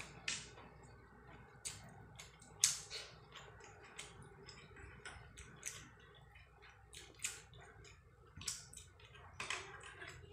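Eating by hand: fingers mixing rice and fish curry on a plate, making faint, irregular small clicks, the sharpest about two and a half seconds in.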